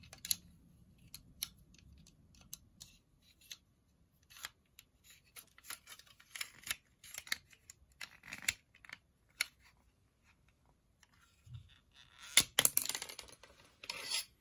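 Small plastic clicks and scrapes of a toy crossbow being handled and loaded, a plastic suction-cup dart slid into the stock and the rubber-band string drawn back. A louder, denser clatter of handling comes near the end.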